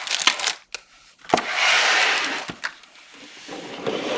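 Rustling and light clicks and knocks of items being handled, with a longer stretch of rustling about a second in.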